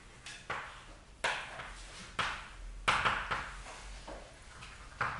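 Chalk writing on a blackboard: an irregular run of short taps and scratchy strokes, a few to the second.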